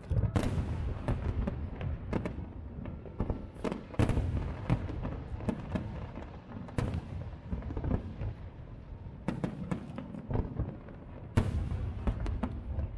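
Aerial fireworks shells bursting in quick succession: a continuous run of bangs and crackle over a low rumble. The heaviest bangs come just after the start, about four seconds in, and shortly before the end.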